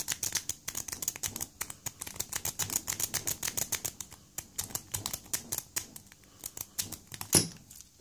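A rake pick scrubbed rapidly in and out over the pin tumblers of an old six-pin Lockwood padlock, held under a tension wrench: a fast, dense run of light metallic clicks. Near the end comes a single louder snap as the lock gives and the shackle springs open.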